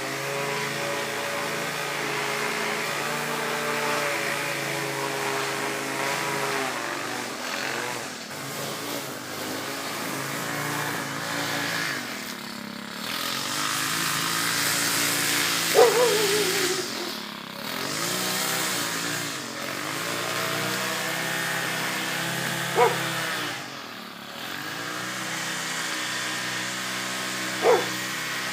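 Small gasoline engines of lawn mowers and string trimmers running, their pitch dipping and rising again several times as the throttle changes. A dog barks three times in the second half, short and sharp over the engines.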